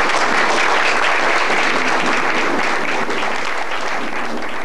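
Applause from a group of people clapping together, easing off slightly near the end.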